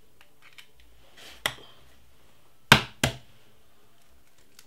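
A raw egg being cracked: two sharp knocks about a third of a second apart as the shell is struck against a hard edge, after a fainter knock about a second and a half in.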